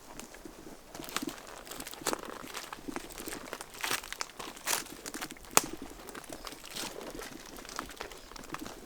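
Irregular rustling and crinkling with scattered sharp clicks and snaps: backpacks and bags being handled and loaded while meat is packed.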